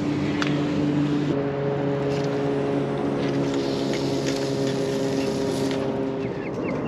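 Boat motor running as the boat moves across the water. Its note is steady and shifts slightly about a second in.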